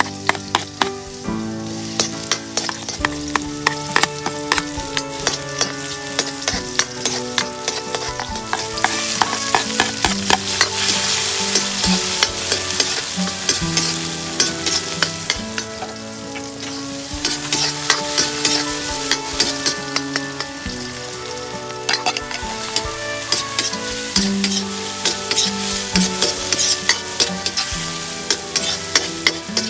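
Garlic, then onions, tomatoes and flaked fish sizzling in hot oil in a black wok, with a spatula scraping and stirring against the metal many times. The sizzling gets louder about a third of the way in, when the onions and tomatoes are in the pan.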